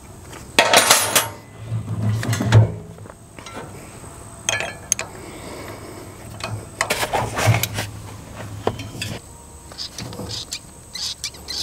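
Scattered metal clinks and clunks as a rotary cutter's PTO driveshaft and gearbox input are turned by hand to bring a grease fitting within reach, and a grease gun's coupler is handled against the universal joint.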